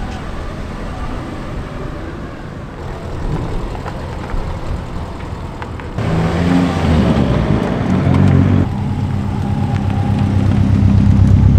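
Cars pulling away: a Honda Civic drives off at moderate volume. From about six seconds in, a Subaru Impreza WRX STI's turbocharged flat-four engine comes in much louder, running low and getting louder as the car passes close by.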